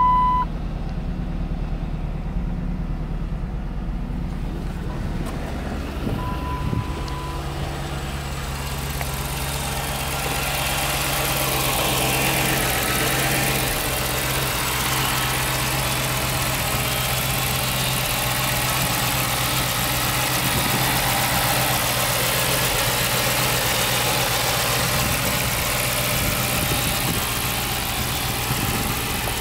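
Dodge Charger SRT-8's 6.1-litre Hemi V8 idling steadily. It is first heard from inside the cabin, then louder and brighter at the open engine bay. A short beep sounds at the start and again about six seconds in.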